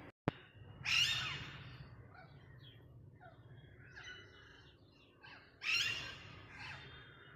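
A parrot calling: two loud harsh squawks, about a second in and again near six seconds, with a few fainter calls between. A sharp click comes just before the first squawk.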